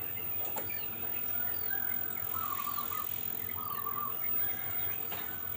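Small birds chirping in the background: short high chirps repeated every second or so, and three brief warbled phrases.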